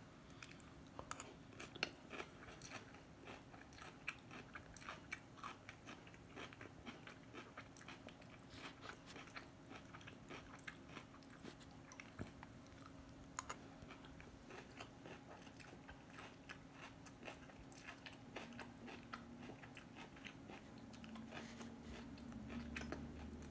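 Faint, close chewing of a mouthful of crunchy coleslaw: many small irregular crunches and mouth clicks, with a faint steady hum underneath.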